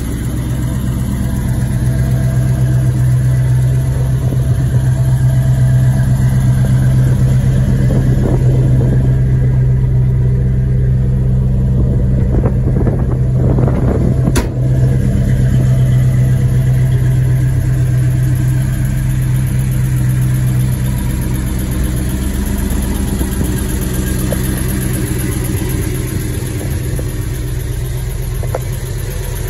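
Car engine idling steadily, with a brief rustle and a sharp click near the middle.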